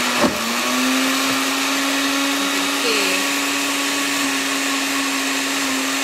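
Countertop blender motor running steadily at speed, pulping soaked torn scrap paper and water into paper pulp. It gives a steady hum with one held pitch, with a brief click about a quarter second in.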